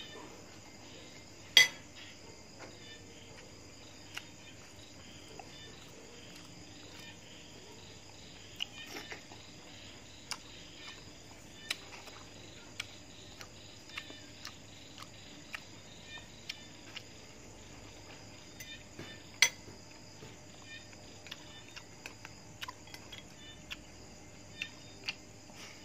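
Spoon and fork clinking on a plate and bowl while eating, with two louder strikes, one about a second and a half in and one about halfway through, and many smaller clicks of eating and chewing between. Behind it runs a steady chorus of night insects such as crickets.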